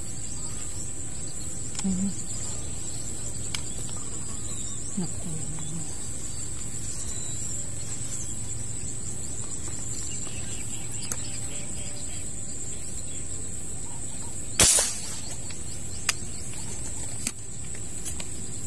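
Steady high-pitched insect trill, like crickets, over quiet pond-side background. About fourteen and a half seconds in comes a single sharp crack of an air rifle shot at a fish, followed by a couple of faint clicks.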